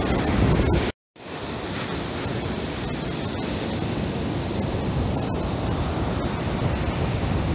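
Wind buffeting the microphone over the steady rush of rough surf. The sound drops out briefly about a second in, then resumes slightly quieter.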